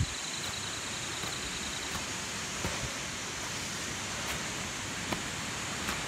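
Footsteps on a leaf-littered forest trail, a few faint scuffs and knocks, over a steady rushing noise. A faint high rapid trill stops about two seconds in.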